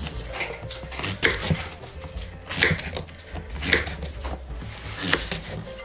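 Kitchen knife chopping zucchini into cubes on a wooden cutting board: sharp knocks of the blade on the board, roughly one a second, some in quick pairs.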